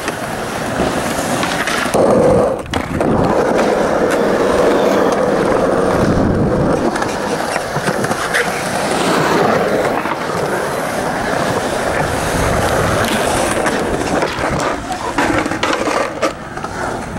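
Skateboard wheels rolling steadily on smooth concrete, with a loud knock of the board about two seconds in and a few sharper clacks near the end.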